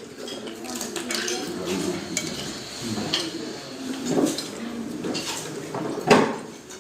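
Cutlery clinking and scraping against plates and dishes at a meal table, in many small irregular clicks, with a louder knock of crockery about six seconds in.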